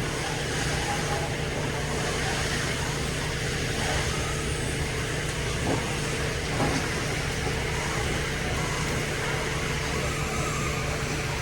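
Dairy milking equipment being rinsed and washed out after milking: a steady mechanical hum and rushing noise, with a couple of faint knocks about six seconds in.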